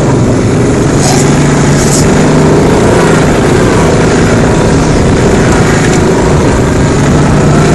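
CF Moto 500 4x4 quad's single-cylinder four-stroke engine running steadily while riding, with two brief hisses about one and two seconds in.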